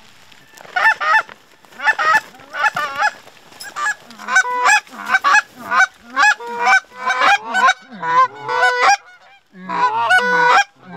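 Canada goose honks and clucks, loud and close: a few calls about a second in, then a rapid run of about two a second, each note breaking from low to high, with a short pause near the end.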